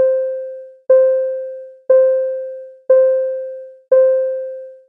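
Earthquake early-warning countdown tone: a single piano-like ding about once a second, five times, each fading away before the next, ticking off the seconds until the shaking arrives.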